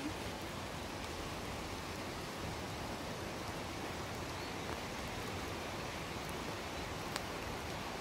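Steady rain falling, an even hiss that does not let up.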